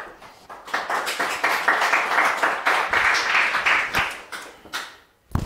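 A small audience applauding, the clapping building about a second in and dying away after about four seconds. A single bump sounds near the end.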